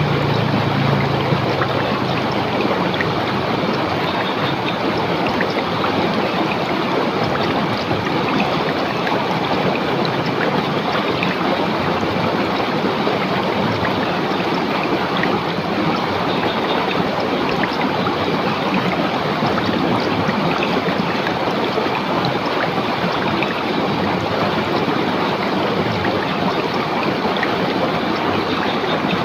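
River water rushing and splashing over rocks, a steady dense rush.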